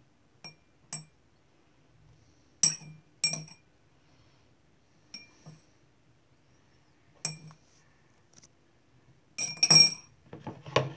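Metal teaspoon clinking against a drinking glass as it scoops out borax solution, with light ringing clinks every second or two and a quicker, louder cluster of clinks near the end.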